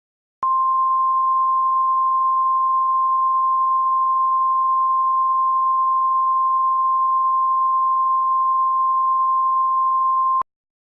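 Emergency Alert System attention tone: one steady, loud, single-pitch beep held for about ten seconds, starting and cutting off abruptly, signalling that an emergency message follows.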